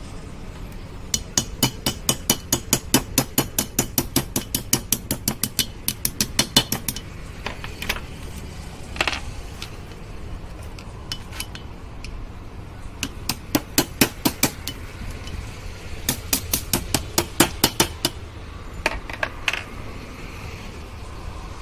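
Rapid, evenly spaced metallic tapping, about five sharp strikes a second, in several runs separated by pauses and a few single strikes, from hand-tool work on a scooter engine. A steady low hum runs underneath.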